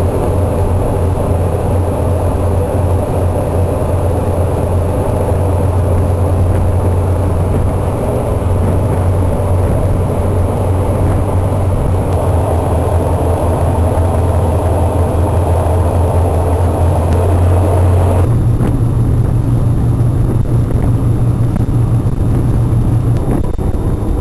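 Passenger ferry's engines droning steadily with a strong low hum under a rushing noise, heard from on deck. About three-quarters of the way through the drone changes abruptly, to a higher hum with less rush.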